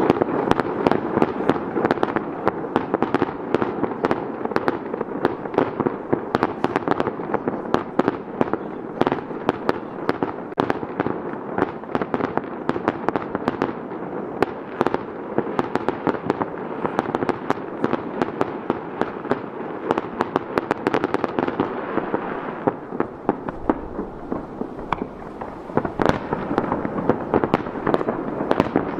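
Fireworks shells bursting in rapid, dense volleys of bangs over a continuous crackle, thinning out briefly about two-thirds of the way through before picking up again.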